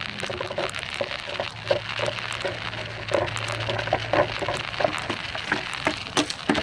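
Hand-handling of a gate operator's plastic cover as it is unscrewed and lifted off: scattered light plastic clicks and knocks, coming thicker near the end, over a steady low hum.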